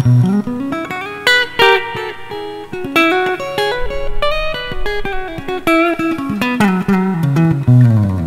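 PRS SE electric guitar played clean on its neck humbucker through a Roland Cube 30 amp: a quick phrase of picked single notes and short chords, with a falling run of notes near the end.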